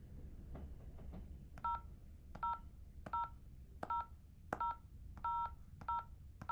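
Smartphone keypad tones on speakerphone as a number is tapped in: a sharp tap, then a short two-tone beep, about every 0.7 s from about a second and a half in. Every beep is the same pair of tones, for the zero key pressed over and over.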